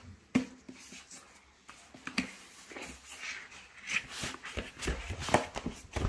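A cardboard smart-lock box being handled and tipped: scattered light knocks, scrapes and rustles of cardboard, with a sharp tap shortly after the start.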